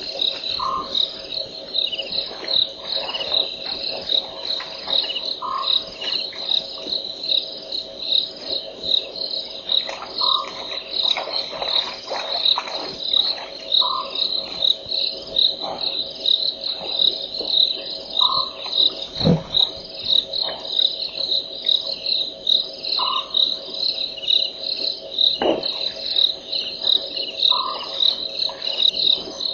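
Night chorus of crickets chirping in a steady, evenly spaced rhythm, with a shorter lower-pitched call repeating every few seconds and a couple of faint knocks.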